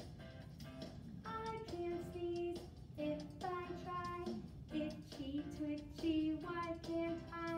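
A song: a high voice sings a melody in held notes over an instrumental backing.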